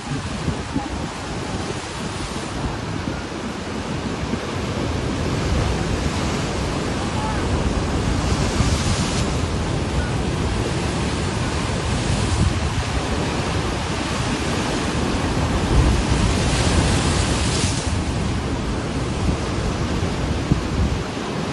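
Wind buffeting the microphone over breaking sea surf: a steady rushing noise, swelling twice into a louder hiss.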